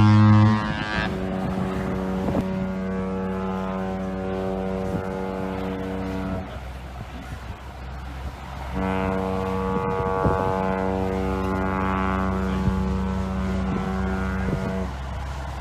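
Cruise ship horns sounding long blasts. A deep, loud horn ends about half a second in, then a higher-pitched horn gives two long blasts of about five and six seconds with a short pause between.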